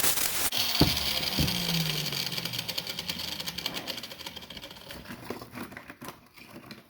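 Grinder with a flap wheel sanding paint off a cast-iron vise, then lifted off the work about half a second in; two knocks follow, and the motor winds down with a falling hum that fades away over several seconds.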